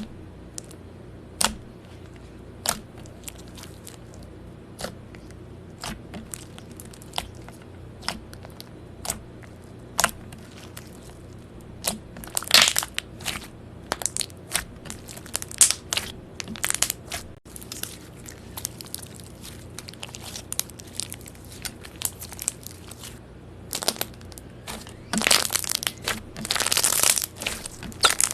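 Slime being pressed and squeezed by hand, giving sharp pops and crackles. They come about once a second at first, then crowd into longer crackling bursts about halfway through and again near the end.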